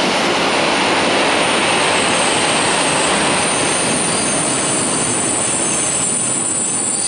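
Container freight train's wagons rolling past close by, a loud steady rumble of wheels on rails, with a thin high squeal joining about two seconds in.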